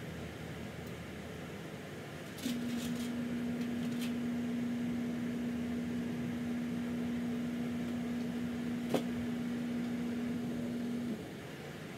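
A steady low appliance hum, one even tone, starts with a few light clicks about two and a half seconds in and cuts off abruptly near the end. A single sharp click sounds partway through it.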